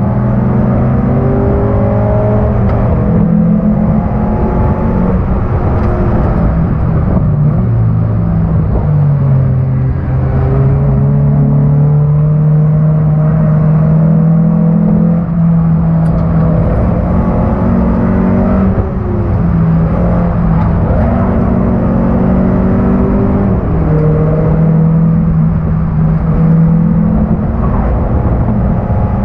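Race-prepared 1991 Honda Accord's four-cylinder engine running hard on track. The engine note climbs as it accelerates and drops back at each gear change or braking zone, several times over.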